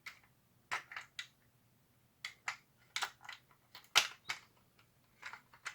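Plastic shell halves of a paintball marker clicking and knocking as they are handled and pressed together around 3D printed parts: about a dozen irregular clicks and taps, the loudest about four seconds in.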